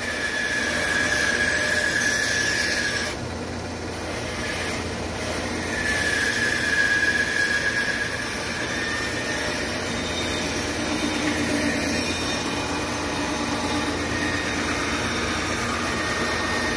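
Shopsmith bandsaw running steadily while its blade cuts through a wooden spatula blank. A higher whine rises over the machine noise twice, for the first three seconds or so and again about six to eight seconds in.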